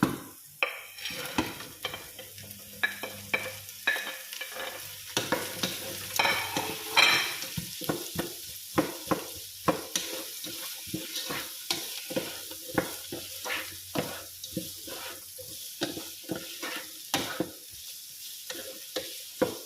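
Vegetables (carrots, potato and green beans) sizzling in a frying pan while being stirred, the spatula knocking and scraping against the pan many times a second over a steady sizzle.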